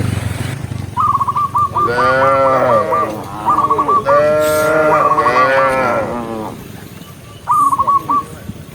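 Cows mooing: two long moos, the second longer, with quick series of short high chirps sounding between and over them.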